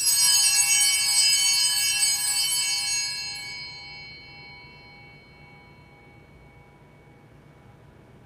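Altar bells rung at the elevation of the chalice after the consecration: a cluster of small bells starts suddenly, jangles for about two seconds, then rings away over the next two or three.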